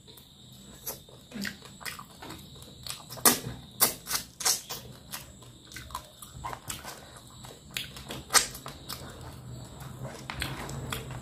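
Close-miked eating by hand: wet chewing and lip smacking on fish curry and rice, a string of irregular sharp smacks, the loudest a few seconds in and again about eight seconds in.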